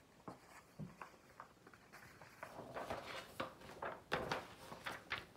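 Paper pages of a picture book being handled and flipped: a scatter of soft rustles and light taps, getting busier about halfway through.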